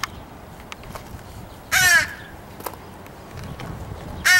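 Crows cawing: two loud, harsh caws about two and a half seconds apart, one near the middle and one at the very end.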